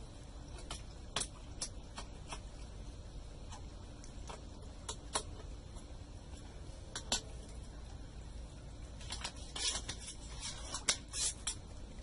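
Light, scattered plastic clicks and taps as a laptop keyboard is pressed down into its seat, with a denser clatter of plastic parts near the end.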